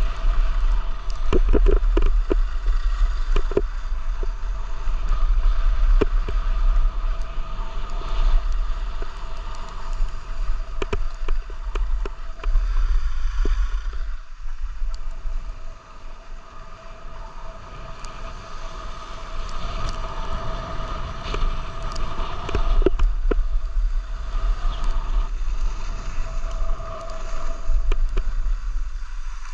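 Wind rumbling over the microphone of a camera carried by a downhill skier, with the steady hiss of skis sliding over groomed snow and scattered short clicks.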